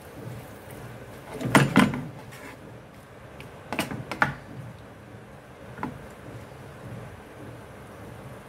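A wooden spatula stirring sliced raw vegetables in a frying pan, with clusters of sharp knocks and scrapes against the pan about one and a half seconds in and again around four seconds in, and a lighter one a little later.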